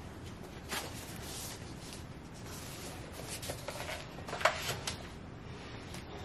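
Handling noise as a cookbook is opened and propped on a metal cookbook stand on a granite countertop: paper rustling and a few light knocks, the sharpest about four and a half seconds in.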